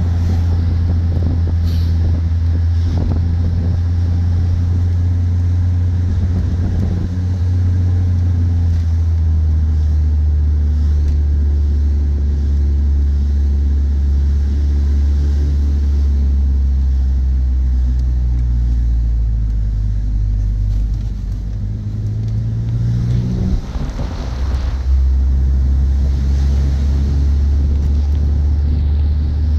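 Car engine and road noise heard inside the cabin while driving, a steady low drone. About eighteen seconds in the engine note climbs for several seconds, then drops back abruptly and settles lower.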